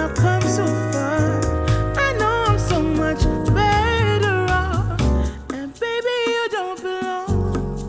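A music track with a gliding melodic lead over a bass line, played back through studio headphones and picked up by microphones. The bass drops out for about two seconds in the second half.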